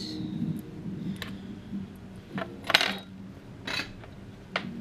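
Small metal hand tools clinking as they are handled and set down on a wooden workbench: about five light, sharp clinks, the loudest a little under three seconds in.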